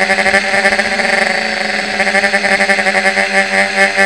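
Multirotor drone's electric motors and propellers whining steadily at a nearly constant pitch, with a fast pulsing flutter.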